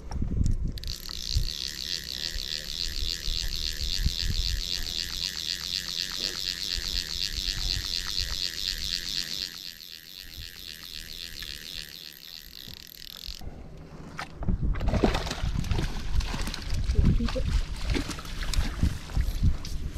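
Fishing reel being cranked as a hooked fish is reeled in: a high, evenly pulsing whir that stops about thirteen seconds in. After that come louder, uneven water noise and splashing as the fish is netted at the side of the boat.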